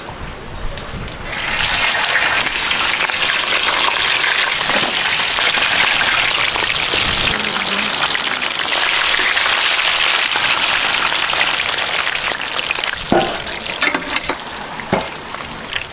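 A steady sizzling hiss of food cooking over high heat starts about a second in and eases off near the end, where a couple of short knocks sound.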